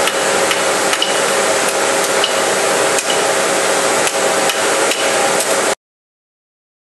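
Hammer blows on steel while carving tools are being forged. The strikes come irregularly, some with a short metallic ring, over a steady din of workshop machinery. The sound cuts off abruptly near the end.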